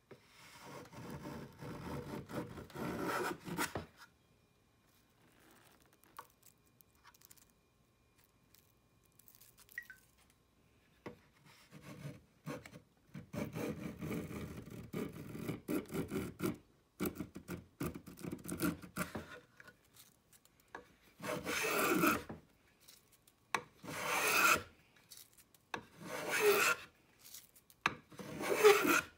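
Stanley 220 block plane shaving the edge of a seasoned pine board. A run of planing strokes comes first, then a pause, then another run. Near the end come four separate, louder strokes about two seconds apart.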